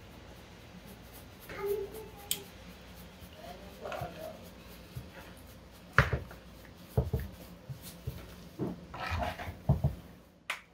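Metal spoon stirring a pot of black beans, scraping and knocking sharply against the metal pot several times in the second half.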